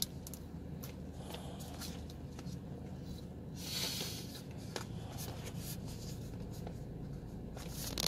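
Light handling noises: scattered small clicks and taps, with a brief rustle a little past halfway, over a steady low hum.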